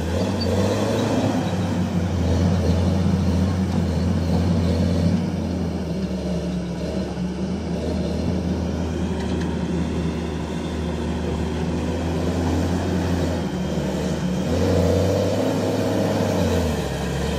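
Diesel engine of a CASE crawler dozer working, a steady low drone that surges and eases several times as the machine moves and pushes dirt.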